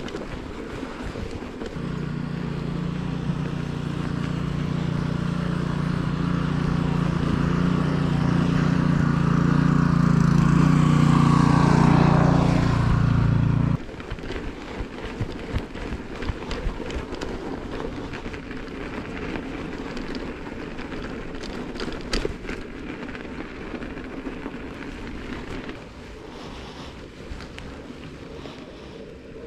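A motor vehicle's engine drone growing steadily louder as it comes close, then cut off abruptly about halfway through. After that, steady wind noise on the microphone with scattered small clicks and knocks.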